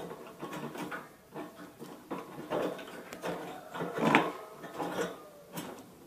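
Irregular clattering and scraping from a budgie cage being handled as a plastic food dish is set inside, a quick uneven series of knocks that dies away near the end.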